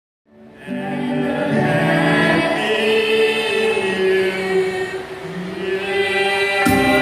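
Small mixed group of carolers singing a Christmas carol in held chords, with electronic keyboard accompaniment. The sound fades in from silence just after the start.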